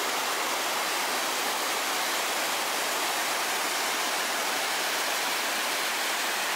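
Mountain stream and waterfall rushing over boulders: a steady, even rush of water, loud and unbroken.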